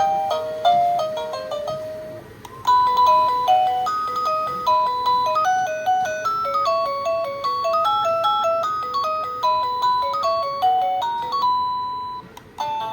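Electronic doorbell chime playing its stored ringtone melodies as a string of quickly fading notes. One tune ends about two seconds in, a second tune plays for about ten seconds, and a third begins near the end.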